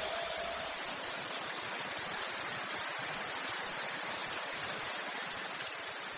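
Steady, even hiss of noise, slowly fading away.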